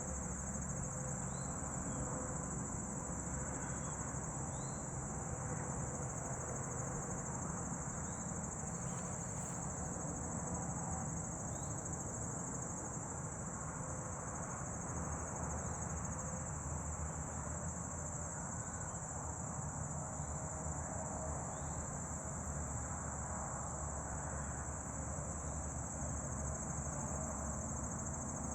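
Steady high-pitched chorus of singing insects, unbroken throughout, over a low buzzing hum of a honey bee swarm.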